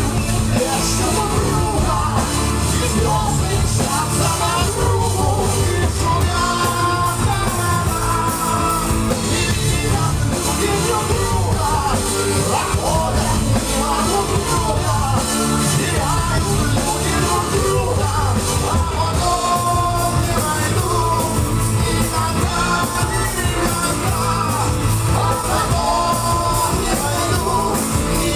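Live rock band playing a song, with drums, a steady bass line and a melody line over it, and voices singing and shouting along.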